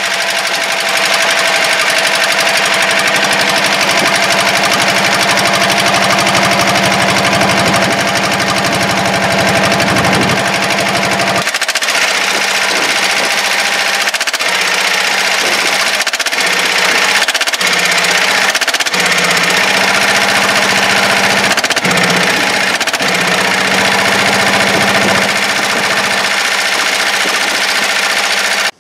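Deutz dumper's diesel engine running loud through a short stub exhaust, with a repetitive knocking beat. About a third of the way in its note changes and the revs turn uneven, rising and falling for the rest.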